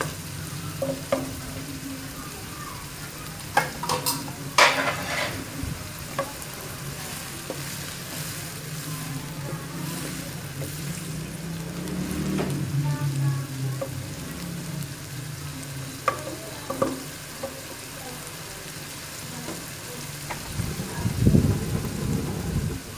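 Chopped raw onions frying in hot oil in a non-stick wok, sizzling steadily while a wooden spatula stirs them, with a few louder scrapes and knocks against the pan. The onions are still pale, at the start of frying.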